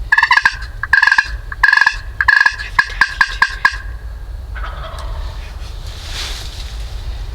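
Wild turkey yelping: four drawn-out notes, then five shorter, quicker ones, stopping about four seconds in.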